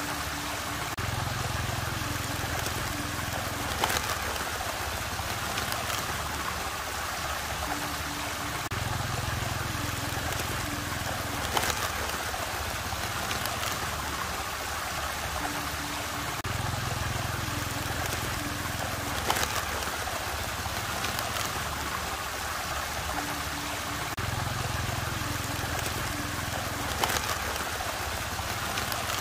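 Steady rush of running, swirling water, with a low hum that swells for a few seconds and a sharp click about every eight seconds, the whole pattern repeating identically like a loop.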